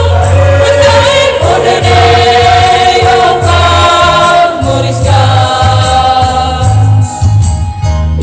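A choir singing a church song in long held notes over a pulsing bass accompaniment, with a brief break near the end before the next phrase.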